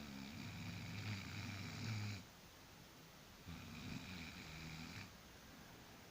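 Person snoring: one long snore ends about two seconds in, and after a pause a shorter one follows, about a second and a half long.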